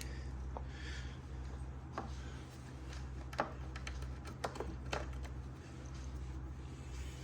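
Scattered light clicks and taps of small metal parts being handled as a greased pin is fitted into a motorcycle's rear brake clevis, over a steady low hum.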